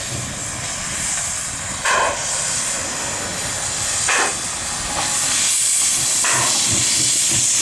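Px29 narrow-gauge steam locomotive working slowly, with a steady loud hiss of steam escaping around its cylinders and a short exhaust chuff about every two seconds.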